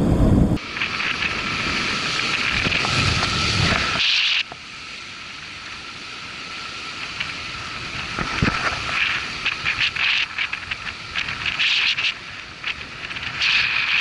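Wind buffeting the microphone over waves breaking and washing on shore rocks. The noise drops abruptly about four seconds in, then comes back in irregular hissing surges.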